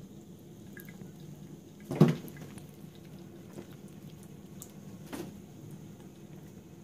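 Thin stream of water trickling from a bathroom tap into a washbasin, with scattered small clicks. A sharp knock sounds about two seconds in and a softer one about five seconds in.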